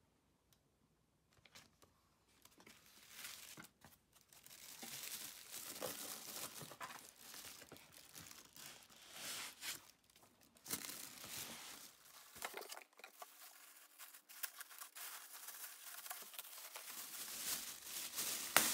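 Faint rustling and crinkling of packaging being handled: paper, cardboard box flaps and a plastic bag, in irregular bursts that start a couple of seconds in and grow louder near the end as the plastic bag is pulled off the unit.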